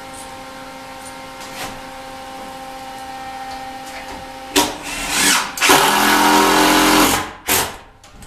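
Cordless DeWalt drill driving exterior wood screws to fasten a planer down to its stand. A short burst comes about four and a half seconds in, then a run of about a second and a half that stops sharply, and one more brief burst near the end. A steady faint hum lies underneath.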